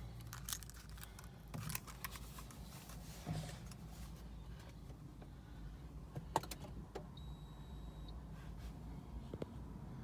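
Nissan GT-R R35 that won't start: scattered clicks over a low steady hum, with a single high electronic beep lasting about a second around seven seconds in.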